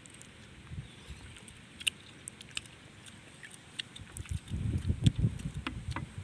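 Light clicks of cooked snail shells knocking together as they are picked from a pile and their meat prised out with toothpicks. About four seconds in, a louder, uneven low rumble joins them.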